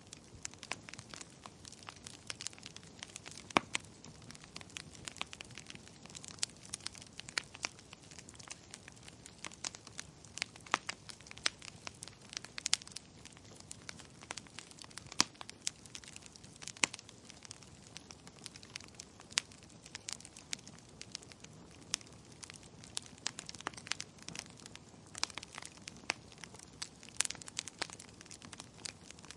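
Burning logs crackling, with irregular sharp pops and snaps, several a second, over a faint steady hiss.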